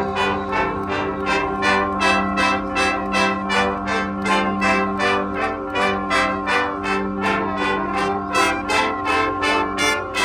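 A marching band's brass section playing loud held chords over an even pulse of about three accents a second.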